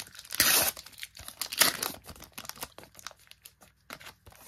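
Wrapper of a Panini Top Class 2024 trading card pack being torn open and crinkled, in several short rips, the two loudest about half a second and a second and a half in.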